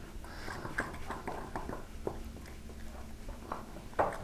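Metal fork stirring flour batter in a glass mixing bowl: light, irregular taps and scrapes against the glass, with one louder clink near the end.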